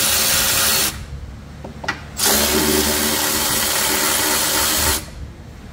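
Milwaukee Fuel cordless electric ratchet running in two bursts, spinning out the 3/8-inch-head screws that hold the belt cover on a riding mower deck. The first run stops about a second in, and the second runs from about two seconds in to about five seconds.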